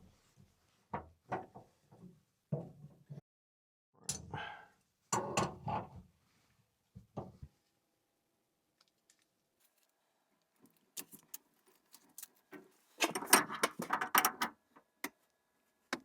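Metal plumbing fittings and hand tools being handled while the hot water line is connected to a tankless water heater: scattered clinks and knocks, a quiet pause, then a burst of rattling clatter near the end.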